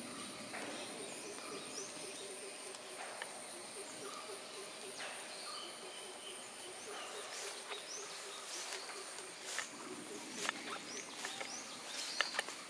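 Rain-wet plantation ambience: a low, rapid pulsing call runs for the first half. Short high chirps of birds follow in the second half, and sharp clicks come more often near the end.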